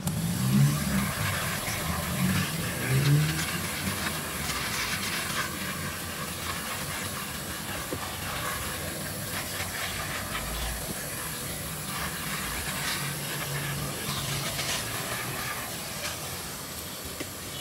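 Vacuum cleaner running steadily with its nozzle drawn over car floor carpet, sucking up dirt with scattered crackles. There are a few louder low bumps in the first three seconds or so.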